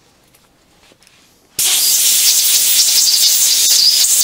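Compressed-air blow gun hissing loudly and steadily, cutting in suddenly about a second and a half in, blowing out threads that have just been rinsed with acetone.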